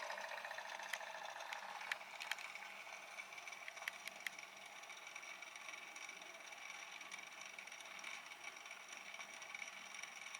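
Nespresso capsule machine's pump running steadily as water is pushed through during a cleaning rinse, a continuous buzzing with a few sharp clicks in the first few seconds.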